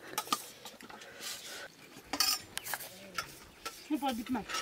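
Spoons scraping and clinking against metal plates as people eat, in a rapid series of short clicks and scrapes.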